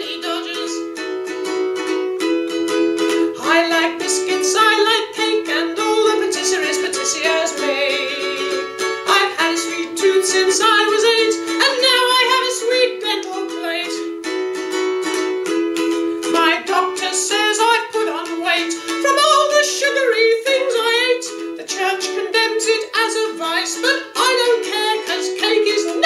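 Ukulele strummed in a steady rhythm of chords, with a wavering singing voice carrying the melody over it.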